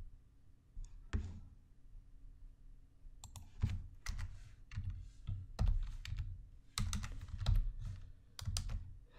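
Computer keyboard keystrokes, scattered and irregular, coming more often from about three seconds in, as code is edited.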